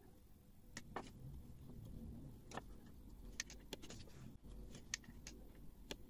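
Faint scattered light clicks and taps as a soldering iron tip and fingers work on a circuit board while an LED is soldered in place, over a faint low hum.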